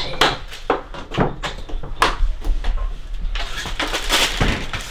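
A closet door being handled: a run of irregular knocks and clicks, with a rustling hiss about three and a half seconds in.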